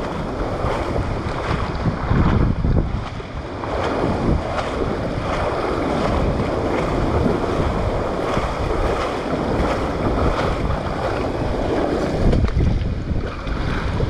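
Wind buffeting the microphone in gusts over the swish and slosh of knee-deep floodwater being waded through.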